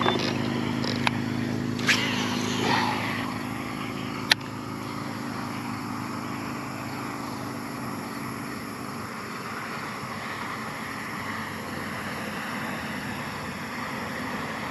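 Steady open-air noise from a small fishing boat on the water, with a low hum that fades out over the first several seconds. A few sharp clicks sound in the first half, the sharpest about four seconds in.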